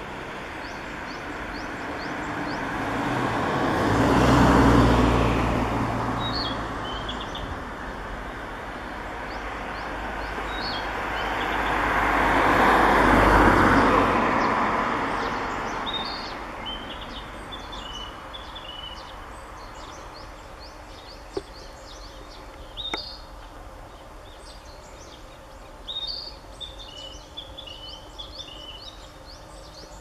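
Small songbirds, Japanese tits among them, calling and singing in short, high repeated phrases from the treetops. Two vehicles pass, each a broad swell that rises and falls, the loudest sounds, at about four and thirteen seconds.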